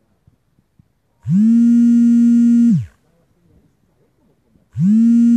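Two long blasts of a horn, each about a second and a half, loud, the pitch sliding up as each starts and dropping as it cuts off.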